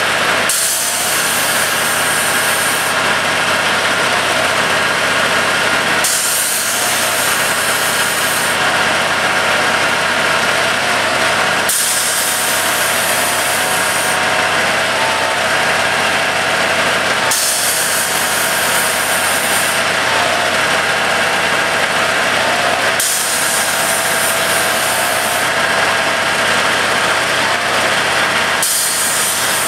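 Track tamper machine's diesel engine running steadily while the machine stands on its hydraulic jack legs, with a high hiss that brightens and dims in a regular cycle about every five to six seconds.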